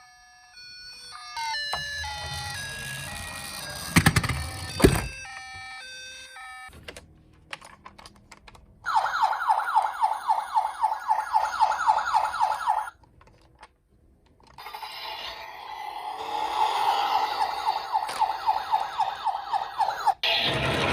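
Toy ambulance's electronic siren. First a short run of stepped electronic tones with a couple of sharp clicks; about nine seconds in, a fast-warbling siren sounds for about four seconds and stops. After a brief gap a second warbling siren comes in and is cut off by a click near the end.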